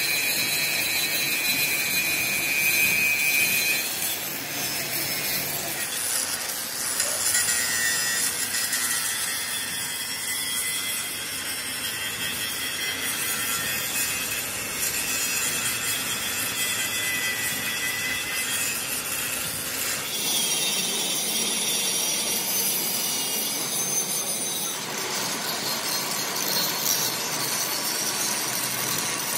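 Handheld electric angle grinder grinding a large cast metal spur gear: a steady high whine and rasp as the abrasive disc bears on the metal, its pitch and tone changing abruptly several times.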